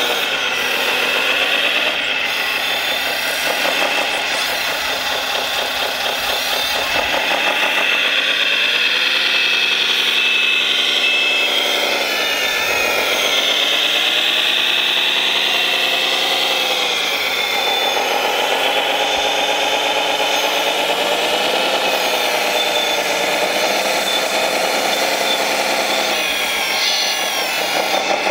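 Radio-controlled 1/14-scale hydraulic wheel loader at work: a continuous electric motor and hydraulic pump whine whose pitch rises and falls repeatedly as the model moves.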